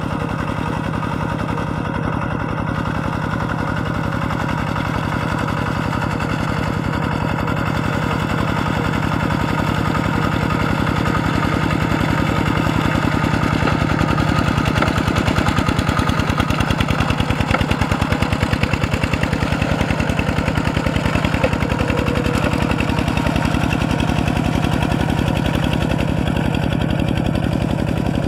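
Kubota RT120 walking tractor's single-cylinder diesel engine chugging steadily under load, with a rapid, even beat of firing pulses, as its cage wheels drag a levelling board through flooded rice-field mud. It grows a little louder about halfway through.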